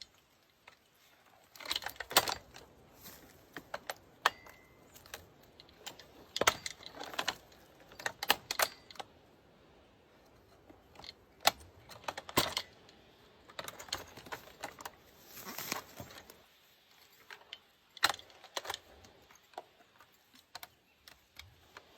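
Irregular clicks, taps and short scrapes of small hard pieces being handled, coming in scattered clusters with quiet gaps between.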